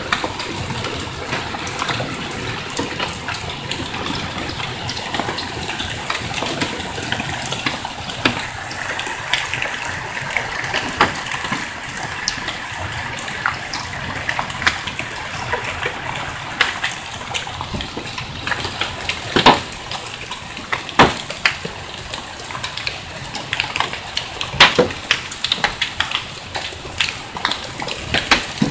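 Heavy hail and rain coming down: a steady rushing hiss with frequent sharp knocks of large hailstones striking, and a few louder cracks in the second half.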